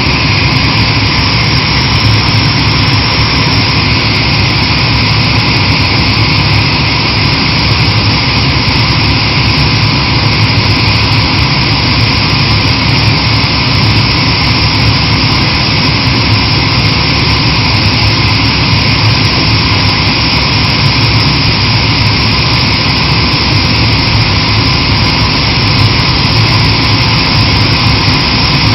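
Kaishan KW20 water-well drilling rig running, a loud steady machine drone with no change in pitch or level.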